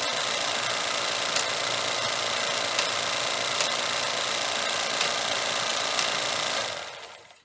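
Steady mechanical running noise with a hiss and a sharp click every second or so; it fades out near the end.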